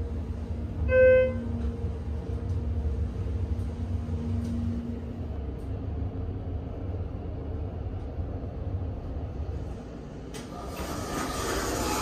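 Ride inside a Schindler 330A hydraulic elevator car travelling up: a steady low hum of the moving car, with a single short electronic chime about a second in. Near the end the hum drops away, and a click is followed by a rush of noise as the car stops and its doors open.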